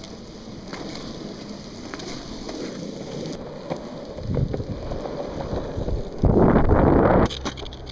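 Longboard wheels rolling over rough asphalt, a steady low rumble, with wind buffeting the microphone and a strong gust of wind noise near the end.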